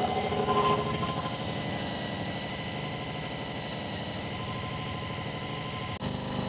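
Honda VFR400 NC24's V4 engine idling steadily while its carburettors are being balanced and the idle set. There is a brief break in the sound about six seconds in, after which it runs on.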